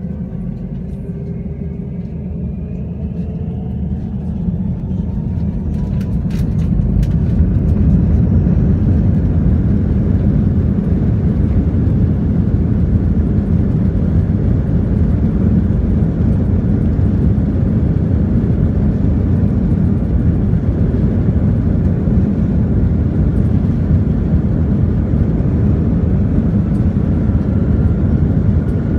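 Jet airliner's engines spooling up for takeoff, heard from inside the cabin: a rising whine over the first six seconds or so, then a steady loud rush of engine and rolling noise as the plane accelerates down the runway. A few clicks sound about six seconds in.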